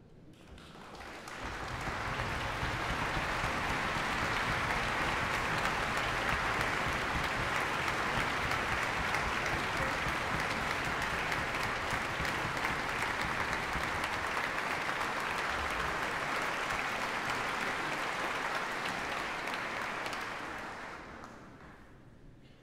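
Large concert-hall audience applauding to welcome the violin soloist onto the stage. The clapping swells over the first couple of seconds, holds steady, then dies away near the end.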